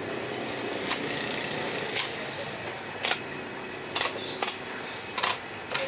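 A knife slicing along a large trevally's back on a wooden chopping block: a soft scraping with a series of short, sharp clicks, about one a second.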